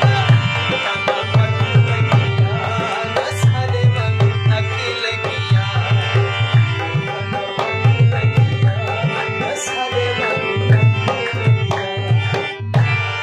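Harmonium playing a held-chord melody over a steady, driving dholak rhythm; the drumming stops just before the end while the harmonium note carries on.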